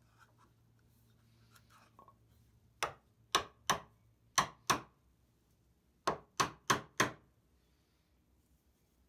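A wooden mallet striking the wooden mallet head clamped in a vise: nine sharp wooden knocks in short runs, starting about three seconds in.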